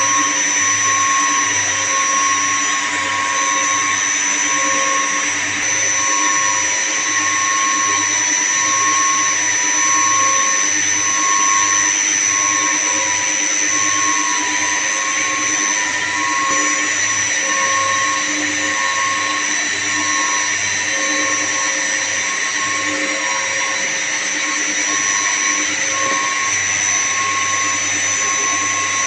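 Steady machinery noise of running chilled-water plant equipment (pump motors and chiller), with a high whine and a tone that pulses about once a second.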